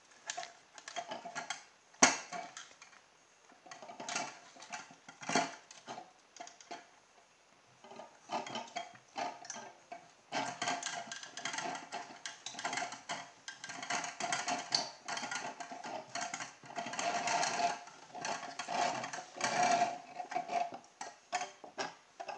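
Handling noise as a mousetrap car is wound up: hands turn the CD wheels on the bicycle-spoke back axle to wind the fishing line, with irregular clicks and rattles from the metal DVD-drive case and the mousetrap's spring arm. There is a sharp click about two seconds in, and the rattling gets busier from about halfway.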